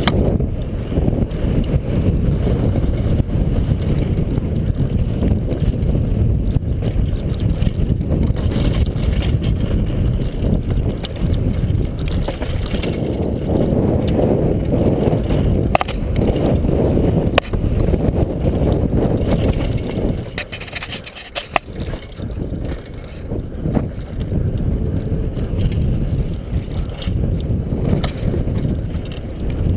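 Wind buffeting a helmet camera's microphone, with a downhill mountain bike's tyres rumbling over a dirt trail and a few sharp knocks from the bike. The rumble drops off briefly about two-thirds of the way through.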